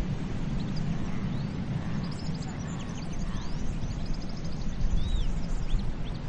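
Steady rush of ocean waves on a beach, with birds giving short high chirps several times through the middle.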